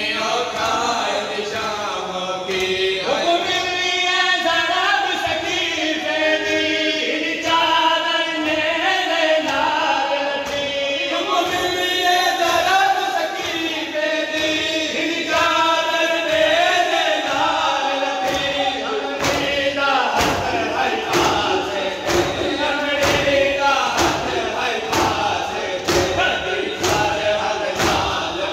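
A group of men chanting a Shia mourning lament (noha) in chorus. About two-thirds of the way through, rhythmic open-hand chest-beating (matam) joins in: sharp slaps at about one and a half a second, keeping time with the chant.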